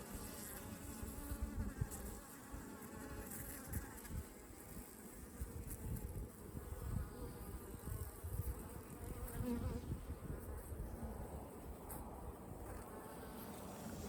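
Honeybees buzzing steadily around an opened hive during a frame inspection, with irregular low rumbling under the buzz.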